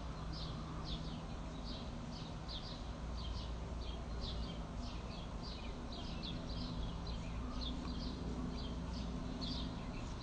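A small bird chirping repeatedly, short high chirps about two or three a second, over a steady low hum.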